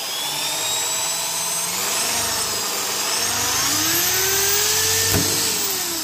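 Cordless drill running, boring a hole through the plastic of a fridge drawer; the motor's whine rises and falls in pitch as it works, with a brief sharp click just after five seconds, easing off near the end.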